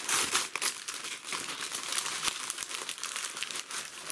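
Brown kraft paper and white wrapping paper crinkling and rustling as hands pull it off a parcel, a dense run of sharp crackles.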